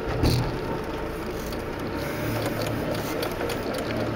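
An off-road vehicle creeping over rough ground, heard from inside the cabin: the engine runs low and steady under a stream of small clicks and rattles, with a thump just after the start.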